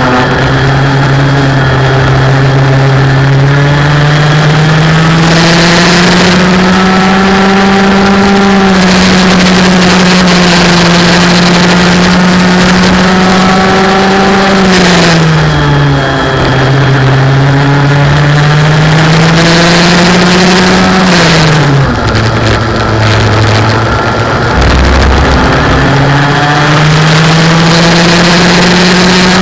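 Race car engine pulling hard, its pitch climbing steadily for several seconds at a time, then dropping sharply about halfway through and again about three-quarters through as the driver lifts or changes gear, before climbing again. Short bursts of rushing hiss come and go over it.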